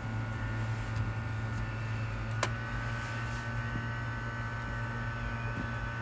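A steady low electrical hum with a faint, constant high whine, typical of a running bench fan or mains-powered equipment, and one sharp click about two and a half seconds in.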